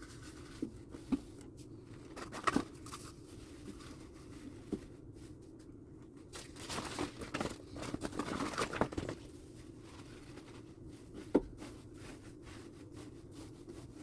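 Cardboard egg cartons and paper towel rolls being handled and pushed into a mouse tank's bedding: scattered light knocks and crinkling, a longer stretch of rustling about halfway through and a sharp click near the end, over a faint steady hum.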